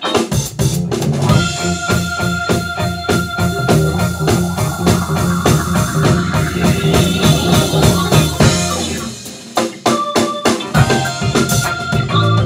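A funk band playing live: an organ-toned keyboard over a drum kit and electric guitar in a steady groove. About three-quarters of the way through, the low end drops out briefly in a short break before the groove comes back.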